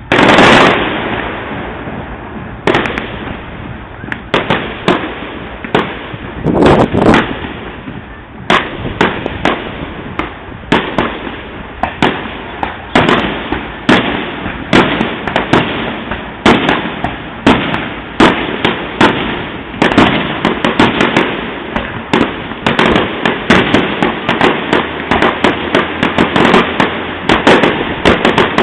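Fireworks going off: a big bang at the start, then a steady run of sharp bangs and pops, one or two a second, coming thicker toward the end.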